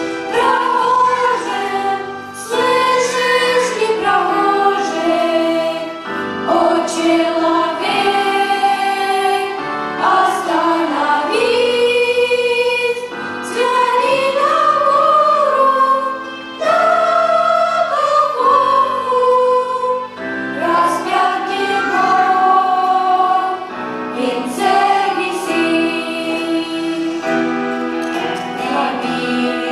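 Church choir singing a hymn in long phrases, separated by short pauses for breath.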